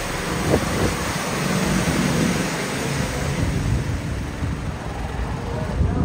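Go-kart running around the track, with steady wind noise on the microphone.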